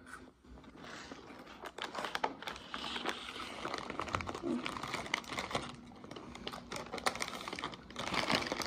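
Plastic chip bag crinkling and rustling as a hand rummages inside it pulling out chips, with irregular crackly clicks.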